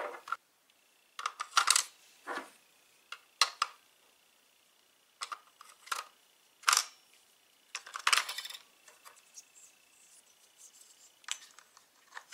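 AA batteries being pressed into the plastic battery compartment of an electronic mouse trap: irregular sharp clicks and clacks of battery against plastic and metal contacts, some in quick clusters.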